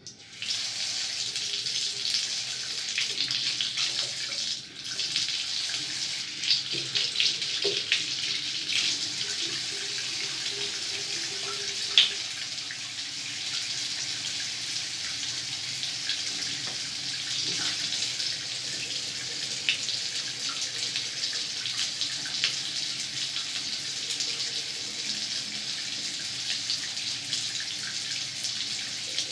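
Water running steadily from a gooseneck tap into a bathroom sink, with a few sharp clicks scattered through it, the loudest about twelve seconds in.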